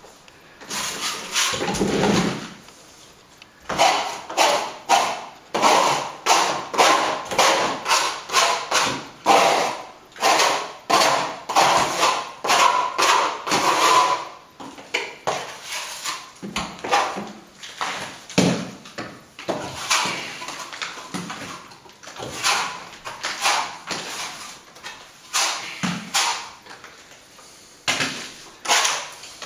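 A small plastering trowel scraping and smoothing plaster along a filled wall chase in short, repeated strokes, about two a second, thinning out into fewer strokes in the second half.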